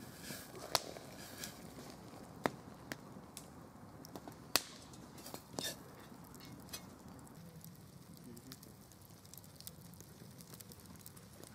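Wood campfire crackling, with a few sharp pops scattered through the first half.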